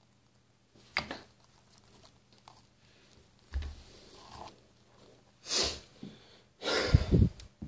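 Handling noise from an opened aluminium drink can and objects being moved on a wooden floor: a sharp click about a second in, a dull thump, then two loud rustling bursts in the second half.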